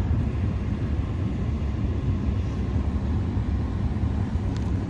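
Snowstorm wind buffeting the phone's microphone: a steady low rumble that swells and dips without any clear tone.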